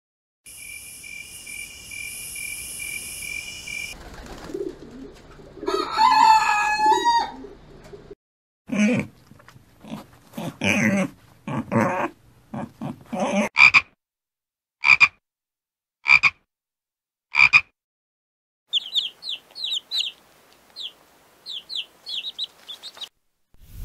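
A run of animal calls: a steady high whine, then a long wavering call, then a nursing sow and piglets grunting in quick bunches and three single calls. Near the end macaw chicks give rapid high begging chirps.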